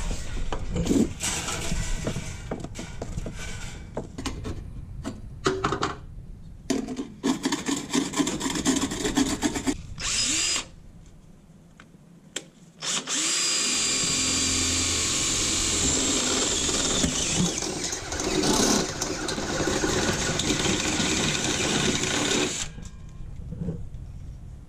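Cordless DeWalt drill with a step bit running steadily for about nine seconds, boring a hole through the top of a metal electrical panel; the motor spins up just after the middle and cuts off suddenly. Before it come irregular knocks and clatter.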